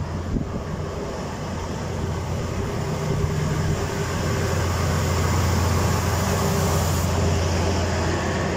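SM30 diesel shunting locomotive running past, a steady low engine drone that swells as it comes close about halfway through.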